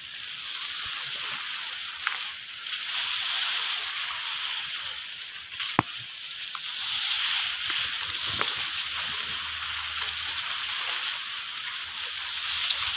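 Grass blades brushing and rustling against the phone as it is pushed low through a grassy field, over a steady high hiss, with one sharp click about six seconds in.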